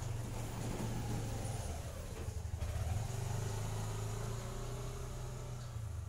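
A motor vehicle's engine running steadily, its pitch dipping and rising again about halfway through.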